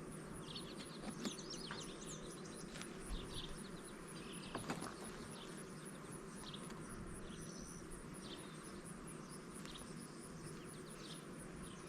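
Honeybees humming steadily around an opened hive, with many short bird chirps over it and a single sharp click about halfway through.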